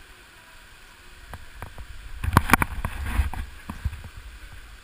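Rope and metal climbing gear clicking and knocking on a rappel platform as a rappeller lowers off, a quick run of sharp clicks with low rumbling handling noise on the microphone in the middle.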